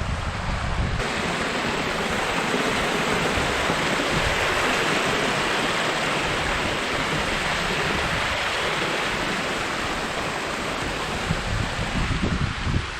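Steady rushing of water from a small creek waterfall, coming in abruptly about a second in, with wind buffeting the microphone in low gusts.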